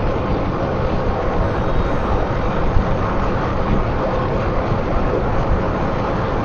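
Steady drone of road and engine noise inside a moving car.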